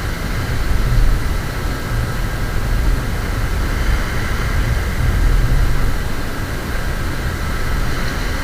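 Wind rumbling on the microphone over the steady wash of surf on a beach.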